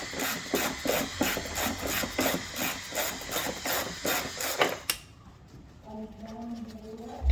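Hand tool working on the car in quick repeated rasping strokes, about four a second, which stop about five seconds in.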